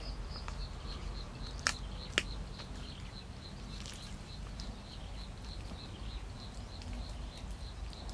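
A high, even call of short piping notes, repeated about four or five times a second, from an animal in the surrounding vegetation, over a low steady outdoor rumble. Two sharp clicks stand out about two seconds in.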